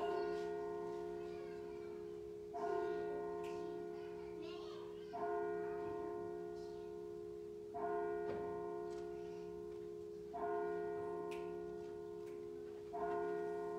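A single church bell tolling at a slow, even pace, one strike about every two and a half seconds, six strikes in all, each ringing on until the next.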